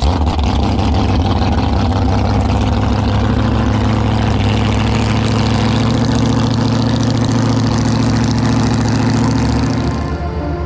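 Motorboat engine running steadily just after being started, holding an even pitch, easing off slightly about ten seconds in.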